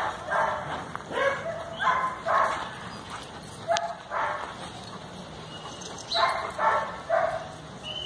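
A dog barking in short runs of two to four quick barks, with pauses of a second or two between runs.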